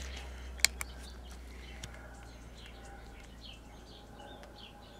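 Faint birds chirping in the background, many short high calls. A sharp click comes about half a second in and lighter clicks follow, from handling the transistor tester.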